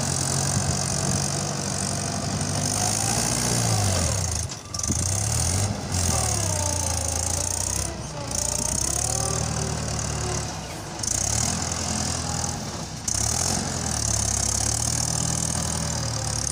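Mahindra tractor's diesel engine running under hydraulic load as its front loader digs into and lifts sand. The engine note rises and falls several times as the throttle and load change.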